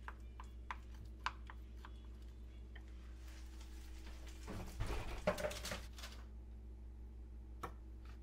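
Kitchen food-preparation sounds over a low steady hum: a few light clicks and taps of utensils in the first couple of seconds, about two seconds of scraping and rustling around the middle, and one more click near the end.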